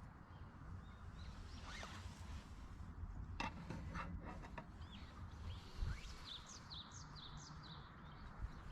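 Faint outdoor ambience: a steady low rumble, a few sharp clicks a little past three seconds in, and a bird chirping several times in quick succession in the second half.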